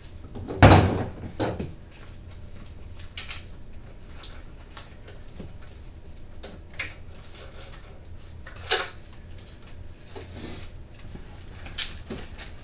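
Hand tools and engine parts being handled: a loud clatter about half a second in, then scattered sharp clicks and knocks.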